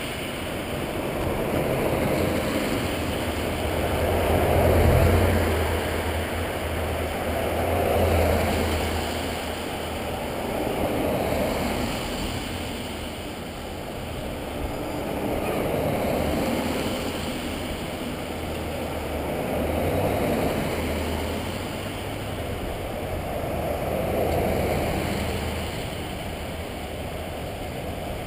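Procession vehicles passing one after another, each one's engine and tyre noise swelling and fading, a new pass about every three to four seconds.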